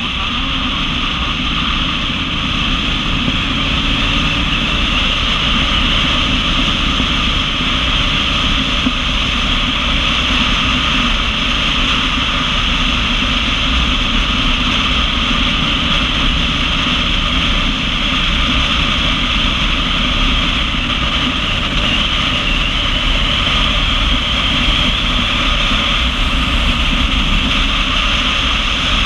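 Cruiser motorcycle running at a steady road speed: the engine's low rumble under a loud, steady rush of wind on the camera's microphone.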